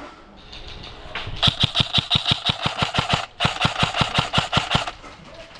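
Airsoft electric rifle firing on full auto, about eleven shots a second, in two long bursts with a brief break about three and a half seconds in.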